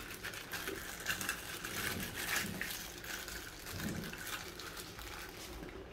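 Clear plastic packaging bag crinkling and rustling as small pump fittings are handled and unwrapped inside it.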